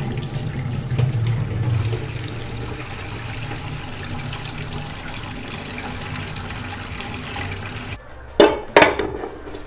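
Boiled tapioca's hot cooking water being poured from an aluminium pot into a stainless steel sink, splashing hardest in the first two seconds and then lighter. Near the end come two sharp metal clanks as the pot is set down to drain on a metal bowl.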